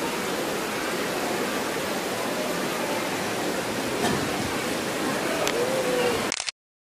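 Steady rushing hiss of hall ambience with no voice over it and a couple of faint ticks; the sound cuts out abruptly to dead silence shortly before the end.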